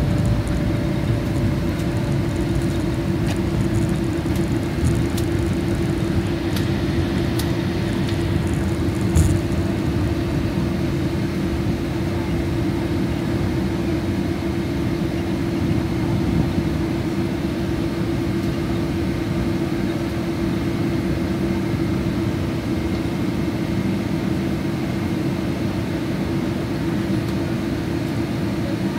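Boeing 777-200ER cabin noise as the airliner rolls along the ground after landing: a steady rumble of engines and airflow with a constant hum underneath. A few light rattles come about six to nine seconds in, ending in a single knock.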